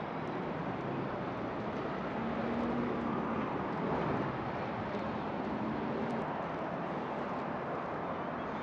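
Steady street traffic noise, with a vehicle's engine hum getting a little louder in the middle.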